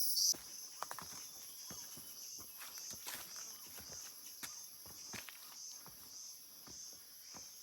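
Irregular footsteps on a hiking trail, with insects singing steadily in a high pulsing drone behind them.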